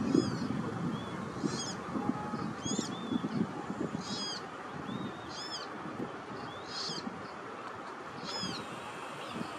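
Common coot chick repeating a short, high-pitched begging peep about once every second and a half, over a low steady rumble.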